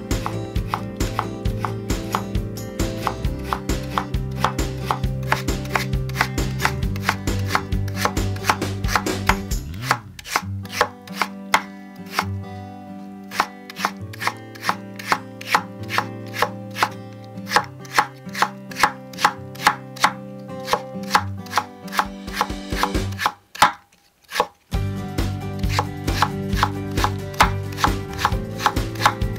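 Cleaver chopping quickly through potato on a wooden cutting board, cutting it into thin matchsticks: an even rhythm of about four knocks a second, with a short break near the end before the chopping resumes.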